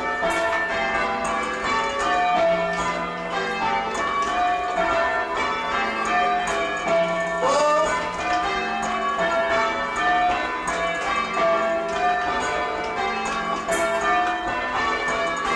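Church tower bells rung full-circle in change ringing, a steady stream of evenly spaced strikes heard from the ringing chamber below. The sixth bell has lost its clapper, so it is swung but not sounding.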